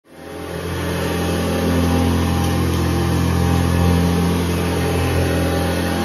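Upright vacuum cleaner running on carpet: a steady motor hum over a broad rushing noise, rising over the first second and then holding steady.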